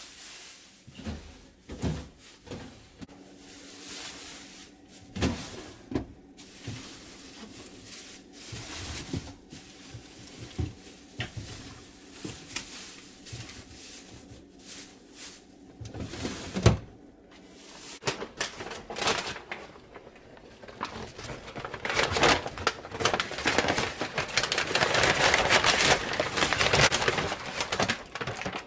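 Household handling sounds: scattered knocks, clunks and clatter like cupboards, drawers and objects being set down. About three quarters of the way through, a louder rough rushing noise joins in and runs almost to the end.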